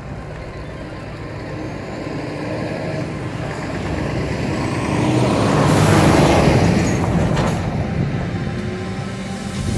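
A car passing close by, its engine and tyre noise swelling to a peak about six seconds in, then fading as it drives away.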